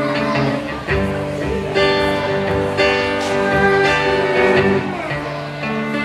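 Live folk band playing, with acoustic guitar and cello carrying sustained notes and a few sliding notes about five seconds in.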